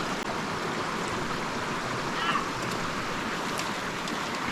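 Mountain stream water rushing steadily, with a brief high chirp about two seconds in.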